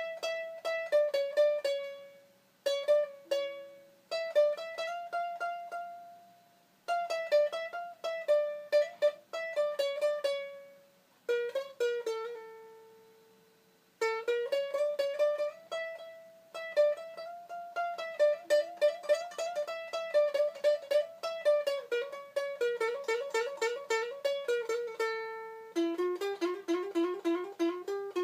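A 3D-printed ukulele played solo, a melody picked note by note in quick phrases. Between phrases a held note rings out and fades.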